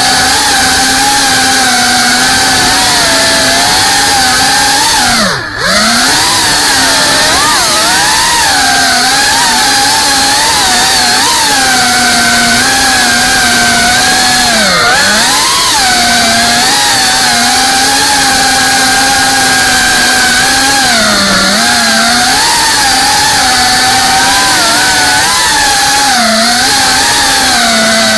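FPV quadcopter's brushless motors whining loudly and steadily, the pitch sliding down and back up with throttle changes. About five seconds in the motors are briefly chopped and the whine dips sharply before spooling back up, with smaller dips later on.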